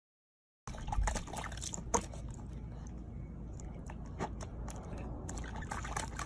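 A corgi puppy lapping and splashing at water in a small plastic tub, with many quick irregular wet clicks over a low rumble, starting under a second in.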